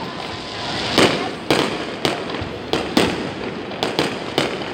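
Fireworks display: aerial shells bursting in a quick series of about eight sharp bangs, roughly two a second, over a continuous background of noise.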